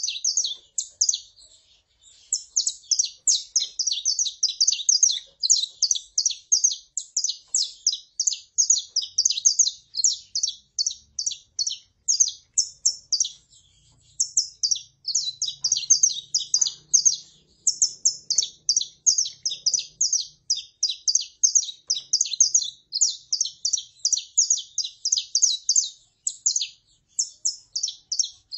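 Saffron finches, a female calling and a male singing: a fast, unbroken run of short high chirps, pausing briefly twice, about two seconds and about fourteen seconds in.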